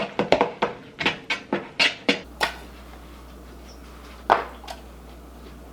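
A quick run of sharp, sticky clicks, about four or five a second, as slime is stirred in a bowl. The clicks stop about two seconds in, followed later by one more louder click.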